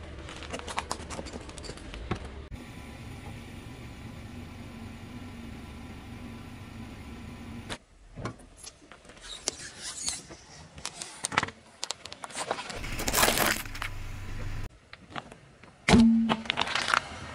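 A car tyre slowly rolling over objects and crushing them: sharp cracks and crackles of breaking plastic, a steady low hum of the car in between, and a sudden loud pop near the end as toothpaste tubes burst under the wheel.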